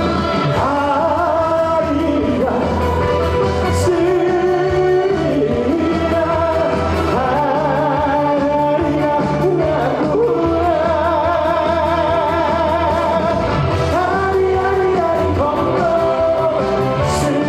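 Trot song sung live over a backing track with a steady bass beat, the voice holding long notes with vibrato.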